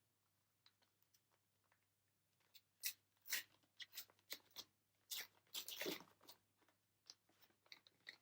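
Booster pack's foil wrapper being torn open and crinkled, in short scattered crackles starting about two and a half seconds in.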